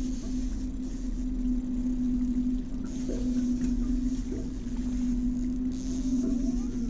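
Boat's outboard motor running steadily at low trolling speed, a constant low hum.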